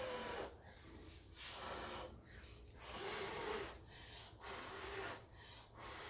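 A person blowing hard by mouth in repeated long puffs, about one every second and a half, across wet, thinned acrylic paint to push it into wave shapes.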